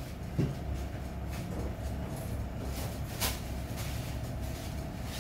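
Gas stove burner heating a pot of water with chicken pieces: a steady low rumble and hiss, with a brief sound about half a second in and a sharp click about three seconds in.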